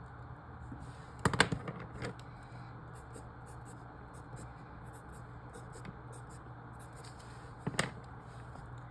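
Writing by hand on paper: a run of short scratchy strokes, with a few sharp taps about a second in, at about two seconds and near the end.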